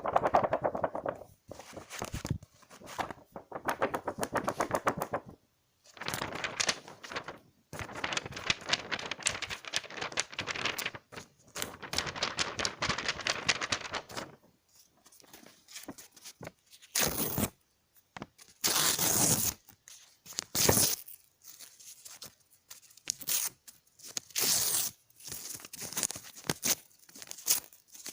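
Paper being torn: long, slow tears with a fine crackle through the first half, then a series of shorter, quicker rips.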